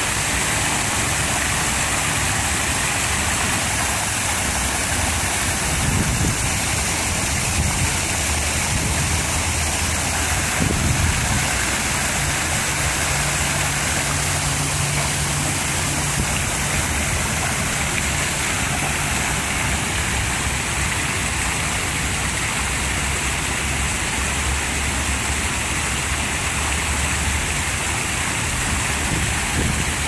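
Artificial rock waterfall: water spilling down stepped rock ledges and splashing steadily into a pond, with a low steady hum underneath.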